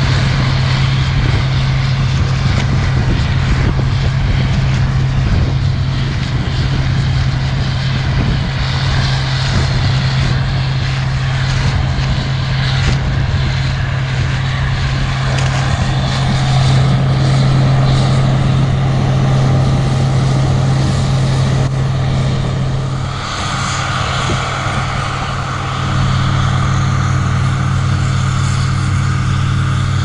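Combine harvester running steadily while shelling corn in the field: a constant engine drone with a steady low hum. The tone shifts about three-quarters of the way through and then steadies again.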